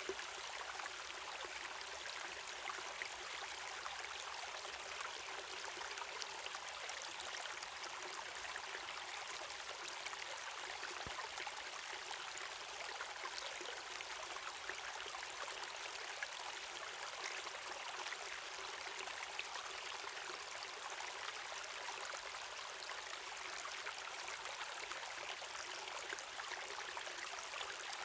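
Waterfall and river water running steadily: an even, unbroken hiss of falling and flowing water, with fine splashing throughout and little deep rumble.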